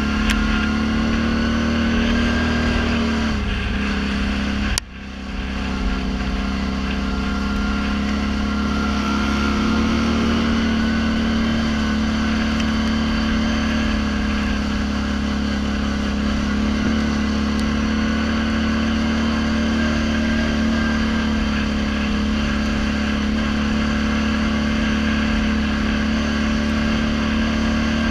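Snorkelled ATV engine running steadily while riding a dirt trail, a constant pitched drone. The engine note sags about three seconds in. Just before five seconds the sound drops out abruptly and builds back over about a second.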